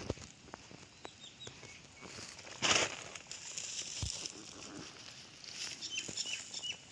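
Rustling of a plastic sack and footsteps on dry weeds and grass, with one loud rustle a little before the middle. Short high chirps, like small birds, come in near the end.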